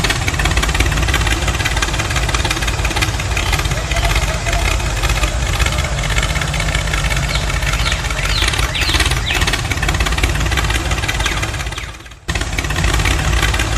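Tractor engine running steadily at idle-like speed, with a heavy low rumble; it cuts out for a moment about twelve seconds in, then carries on.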